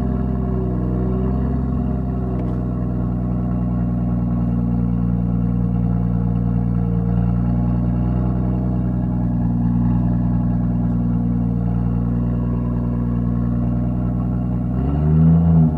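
Turbocharged Toyota 1G-FE straight-six in a Lexus IS200, idling steadily through a 2.5-inch straight-pipe exhaust, with a quick throttle blip that raises the revs near the end.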